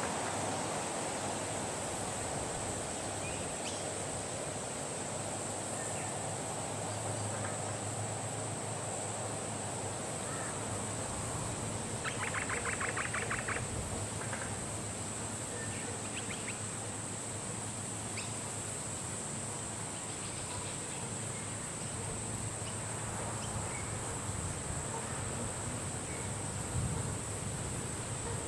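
Wind blowing steadily, with a constant high-pitched buzz over it and scattered short bird chirps. About twelve seconds in, a bird gives a rapid trill lasting a second or so.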